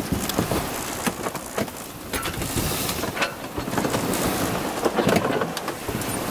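Wind and water rushing past an Albin Vega 27 sailboat beating to windward under working jib: a steady noisy rush that swells and eases, with a few short splashes or knocks.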